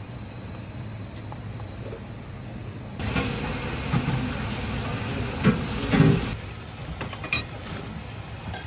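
Kitchen sounds in quick cuts: a steady low hum, then, about three seconds in, a louder sizzling hiss of fish fillets cooking on a rack under a grill, then a utensil mixing in a stainless steel bowl with a few light clicks.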